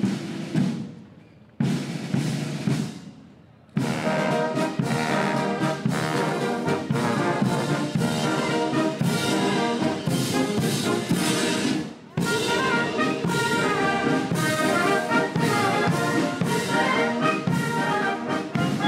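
Military marching band playing: two drum strokes ring out and fade, then the brass band comes in about four seconds in with trombones and trumpets playing a march, with a short break near the middle.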